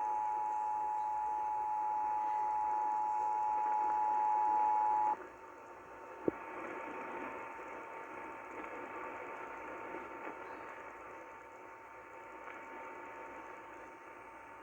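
Emergency Alert System two-tone attention signal heard over the radio: two steady tones sounding together, held for about five seconds, then cutting off abruptly. Radio hiss follows, with one sharp click.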